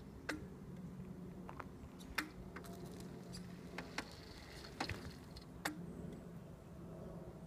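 Powered wheelchair's drive motors humming low and steady as it rolls over tarmac, with about five sharp clicks at irregular intervals.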